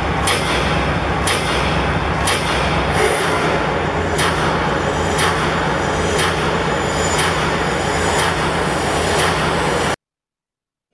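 Loud, steady noise of a large stadium crowd, with a sharp hit about once a second keeping time with a countdown; it cuts off abruptly about a second before the end.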